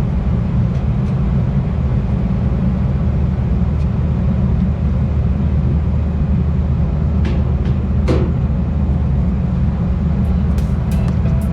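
Steady low machinery drone of running packaged air-conditioning units, with a couple of light knocks about seven and eight seconds in.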